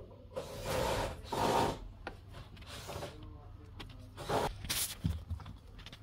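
Rubbing and scraping handling noises, two longer ones in the first two seconds and two short ones about four and a half seconds in, over a low steady hum.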